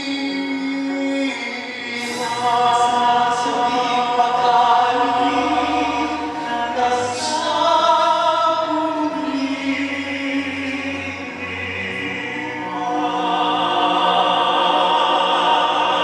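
Three male pop tenors singing together in harmony through handheld microphones, holding long sustained notes, swelling louder near the end.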